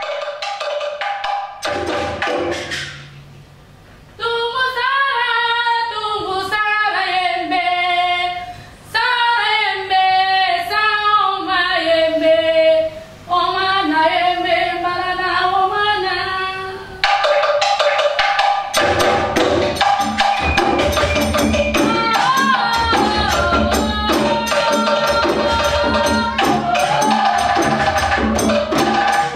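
A solo voice sings alone in long, sliding phrases with short breaks. About halfway through, a West African drum ensemble of djembes and stick-beaten drums comes in, playing a dense rhythm with singing over it.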